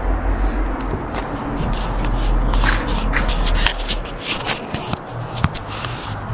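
Rustling and scraping handling noise, with many scattered clicks, as gloved hands work two phones. A low hum underneath stops about four seconds in.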